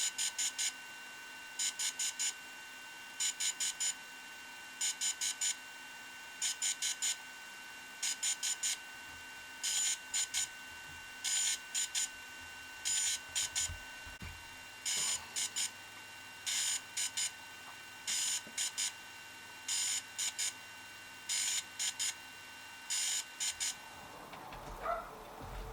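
DJI Phantom 3 Pro quadcopter beeping during a firmware update: quick clusters of short high-pitched beeps repeat about every second and a half, over a faint steady tone. Both stop about 24 seconds in.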